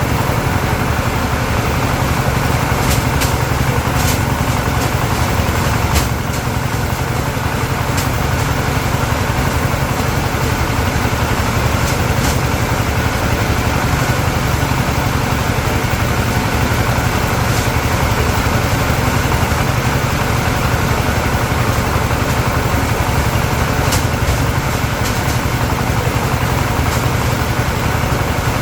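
A small engine running steadily, with a strong low hum and a few scattered sharp clicks.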